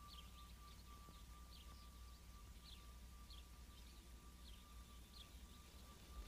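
Faint bird chirps, short and repeating about once or twice a second, over a low steady rumble and a thin steady tone.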